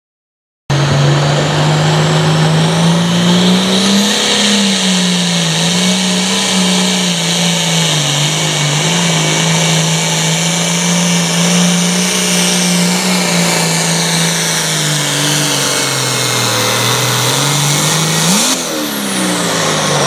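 Super farm pulling tractor's turbocharged diesel engine running flat out under load as it pulls a weight-transfer sled, its pitch wavering up and down with a high turbo whine over it. It cuts in suddenly about a second in, and near the end the throttle comes off and the engine and whine wind down.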